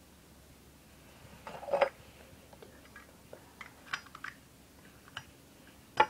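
Small metal clicks and clinks of a Zippo lighter being handled, with a louder scraping clatter about two seconds in and two sharp clicks near the end.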